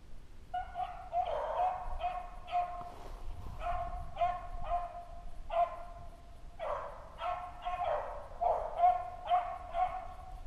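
Beagles baying on a running rabbit's trail: a long, irregular string of short pitched barks on much the same note, starting about half a second in. It is the sound of hounds on the scent, chasing the rabbit.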